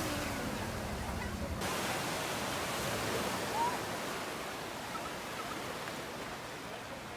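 A steady rushing noise outdoors, with no clear pitch or rhythm. About a second and a half in, its hiss changes abruptly, and a faint short chirp rises near the middle.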